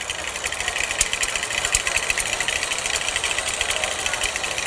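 KitchenAid tilt-head stand mixer running steadily with a fast rattle, its beater creaming room-temperature butter in the steel bowl.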